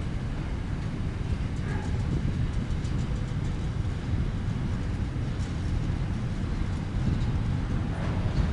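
Container wagons of a freight train rolling past: a steady low rumble of steel wheels on the rails, with a few faint clicks.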